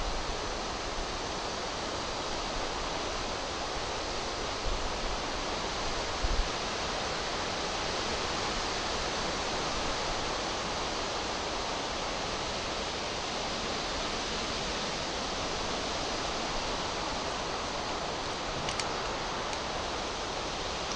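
A steady, even hiss with no distinct events, and a couple of faint clicks near the end.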